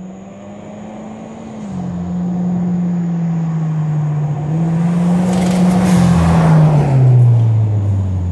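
2015 Subaru WRX with a CVT and Mishimoto intake, its turbocharged flat-four engine pulling hard as the car drives up and passes close by. The engine note grows louder from about two seconds in, is loudest around two-thirds of the way through, then drops in pitch as the car goes past.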